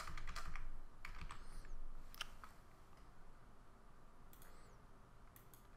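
Faint computer keyboard keystrokes: a handful of separate clicks in the first two and a half seconds, then a couple more about four and a half seconds in.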